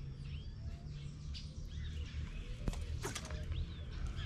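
Birds chirping with short calls over a steady low rumble, with a couple of sharp clicks a little past halfway.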